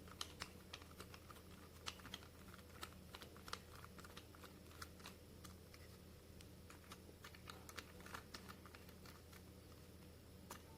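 Faint, irregular small clicks and ticks of a T8 Torx screwdriver working a screw out of an epilator's plastic base.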